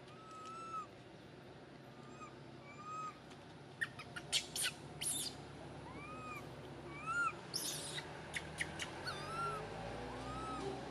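Baby long-tailed macaque giving short, arched coo calls, a thin rise-and-fall cry repeated every second or so, with a few sharp squeaky clicks in the middle.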